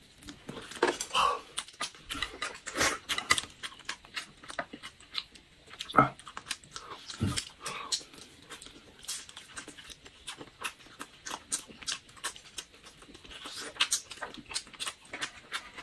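Close, wet eating sounds of two people biting and chewing grilled meat and shrimp: many irregular mouth clicks and smacks, with a few short murmurs.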